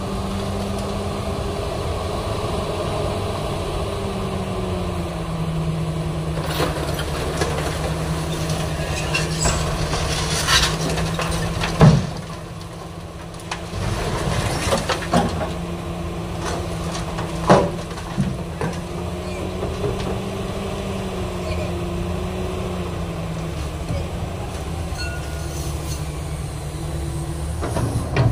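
Doosan hydraulic excavator's diesel engine running under load, its pitch rising and falling as the hydraulics work the arm. Over it come metallic clanks and bangs as scrap metal and the bucket strike the steel dump-truck bed. The loudest bang comes about twelve seconds in, after which the engine briefly eases off, and another sharp bang follows several seconds later.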